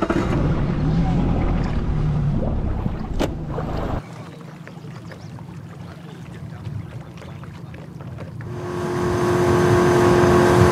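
Tiller-steered 50 hp outboard motor running the boat across open water, with wind on the microphone. About two-thirds of the way through it swells into a loud, steady engine whine at running speed.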